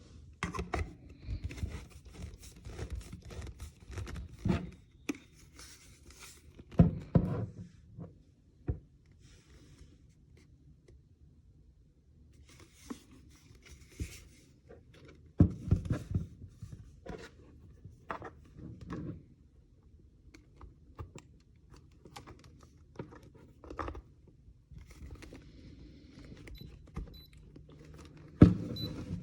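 Irregular knocks and clatters of objects being handled in a small room, with stretches of crinkling and tearing.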